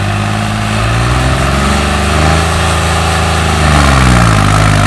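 Modified New Holland 3630 tractor's diesel engine revving up and holding high. Its pitch sags about three and a half seconds in and the engine gets louder as it takes the load of the disc harrow. Its fuel delivery has been turned up for more power.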